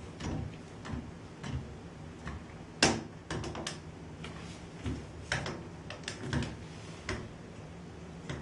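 Scattered light clicks and knocks of a new shower head being screwed onto the shower arm, fitted without Teflon tape. The sharpest click comes about three seconds in.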